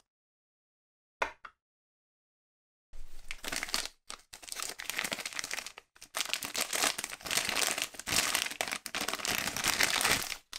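Thin clear plastic bag crinkling and rustling as a plastic toy part is worked out of it by hand, starting about three seconds in and going on with short pauses. A single short click comes about a second in.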